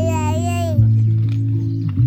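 Background music: low sustained chords that change about once a second, with a held, wavering lead note that ends under a second in.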